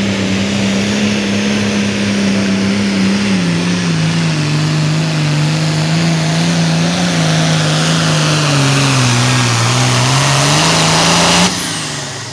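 Hot Farm pulling tractor's turbocharged diesel engine running flat out under load, its pitch sagging lower over the second half as the sled pulls it down, then dropping away suddenly near the end as the run finishes. A thin high whine runs above the engine and falls off with it.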